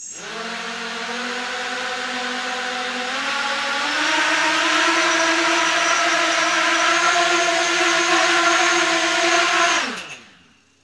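Small octocopter's eight 2400kv brushless motors with 5030 carbon props spinning up and hovering: a steady propeller whine that steps up in pitch and loudness about four seconds in, then winds down with falling pitch near the end.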